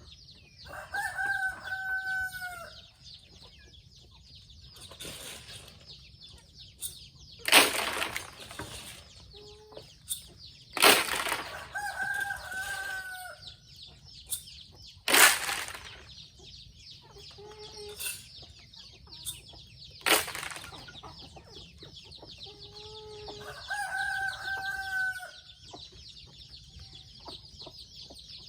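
Free-range chickens: a rooster crowing three times, hens clucking in between, and several short, loud, sharp sounds. A steady high-pitched drone runs underneath.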